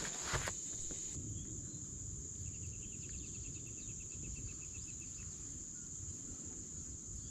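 Insects trilling steadily in a high, thin, continuous tone, with a short run of rapid, evenly spaced chirps about a third of the way in, over a low rumble.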